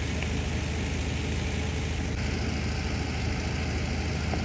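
A steady low motor hum, unchanging throughout.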